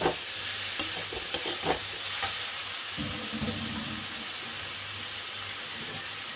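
Chopped banana flower and spice paste frying in a metal wok, a steady sizzle. A metal spatula scrapes and knocks against the pan several times in the first couple of seconds of stirring, then the frying sizzles on alone.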